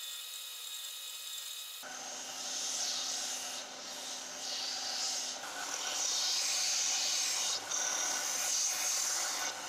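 Bench belt-and-disc sander running with a steady motor whine, then grinding the steel axe head on the sanding belt from about two seconds in: a loud rasping hiss of metal on abrasive that grows louder past the middle, with a brief break as the head is lifted off the belt.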